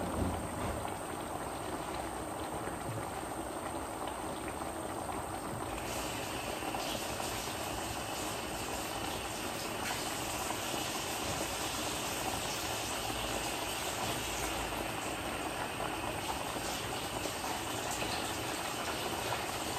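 Chicken asado simmering in its pan, a steady bubbling hiss that gets sharper about six seconds in.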